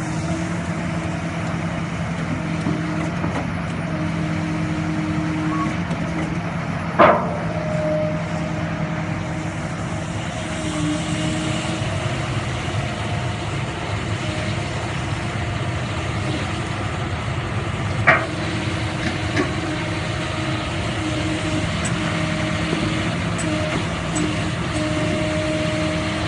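Kobelco SK350 tracked excavator's diesel engine running steadily under hydraulic load while its Movax sheet-piling attachment handles a steel sheet pile. Two sharp clanks of steel on steel, about seven and eighteen seconds in.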